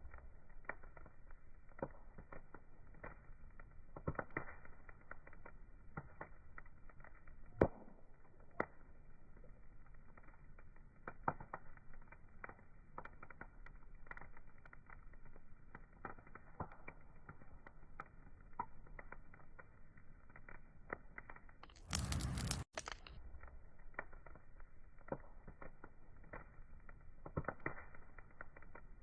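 Wood fire crackling: irregular scattered pops and snaps over a faint hiss. About three quarters of the way through there is a brief, louder burst of noise lasting about a second.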